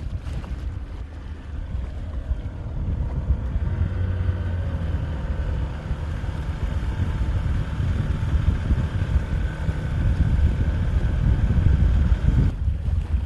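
Wind buffeting the microphone: a gusty low rumble, with a faint steady hum above it.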